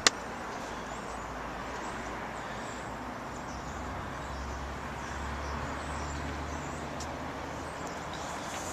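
Steady outdoor background noise with a low rumble that swells a little midway, faint high chirps, and a sharp click right at the start.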